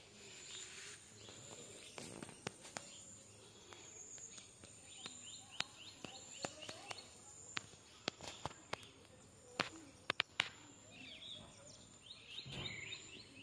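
Faint small birds chirping in quick bursts, with scattered sharp clicks and knocks over a quiet hiss.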